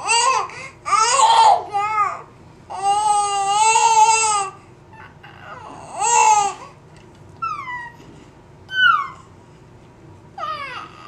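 A baby babbling and squealing in a string of high-pitched vocal noises: short calls, one long held call about three seconds in, and two quick squeals that fall in pitch near the end.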